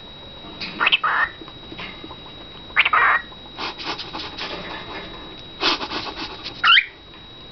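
Cockatiel chattering in a string of short squawks and mumbled calls, with a quick whistled glide near the end.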